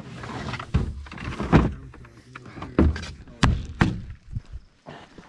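A series of knocks and thuds, about six in all, as gear and a plastic bucket are handled in and around a pickup truck bed.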